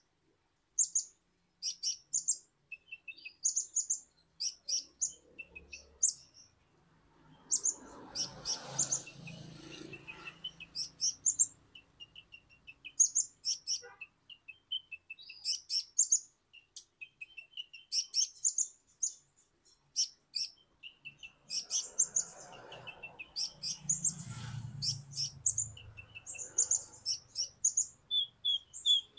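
Male purple-throated sunbird (kolibri ninja) singing energetically in full song: rapid runs of short, sharp, high chirps and twitters in quick bursts with brief pauses between them. A faint low rumble sits behind it twice.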